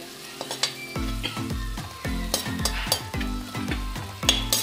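A slotted metal spoon stirring and scraping a sizzling tomato masala around an iron kadhai, over background music whose steady low beat comes in about a second in.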